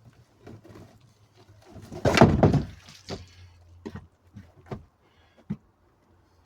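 A snug-fitting enclosure box being handled and its cover forced into place: a loud scrape about two seconds in, then several light knocks and taps.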